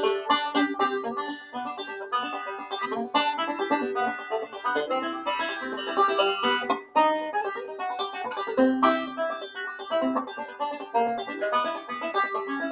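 Instrumental music with fast plucked-string picking, many quick notes in a row.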